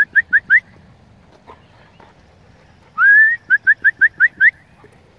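A person whistling to call dogs: a quick run of short rising whistles, then about three seconds in a long rising whistle followed by about seven quick rising chirps.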